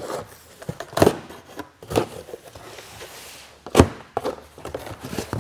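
Cardboard shipping box being opened by hand: a series of dull knocks and scraping of cardboard as the flaps are worked loose, with the loudest knock about four seconds in.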